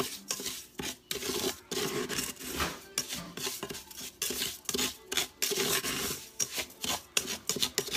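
Slotted wooden spatula stirring dry grits in bacon grease against the bottom of a stainless steel pressure cooker pot: a quick, irregular run of gritty scraping strokes.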